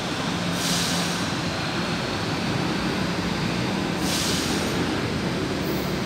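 São Paulo Metro K-fleet train pulling out of the station and running away from the platform: steady rumble and hum with a faint high whine rising slowly as it picks up speed. There are two short hisses, one about half a second in and one about four seconds in.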